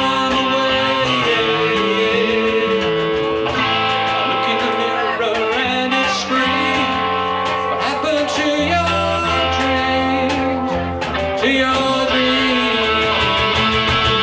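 A band playing a song live, a guitar to the fore over bass and drums, with some notes bending in pitch and steady cymbal strokes.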